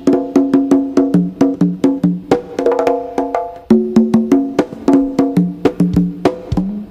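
Music: a quick, repeating pattern of short, pitched percussive notes, several a second.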